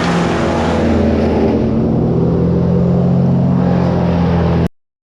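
An engine running steadily, cutting off abruptly a little over four and a half seconds in.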